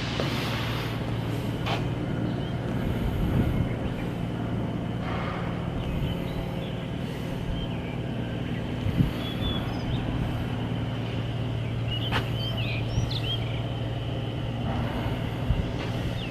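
Machinery running with a steady low hum, with a few sharp knocks and, about three-quarters of the way through, some short high chirps.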